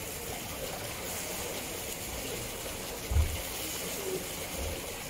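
Water running and sloshing in a polar bear enclosure pool, a steady wash of noise, with one dull low thump about three seconds in.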